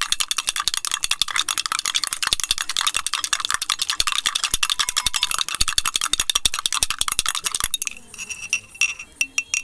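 Metal spoon beating instant coffee, sugar and a little milk in a glass mug: rapid, continuous clinking and scraping against the glass as the mix is whipped to a froth. The beating stops about eight seconds in, leaving a few light clinks.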